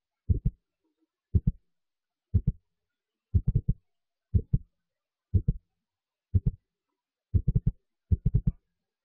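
Low thumping in a steady rhythm, about one beat a second, each beat a quick run of two to four thuds with dead silence between.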